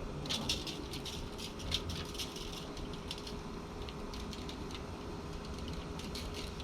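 Seasoning shaker being shaken over fish: a quick, irregular series of small dry rattles and ticks.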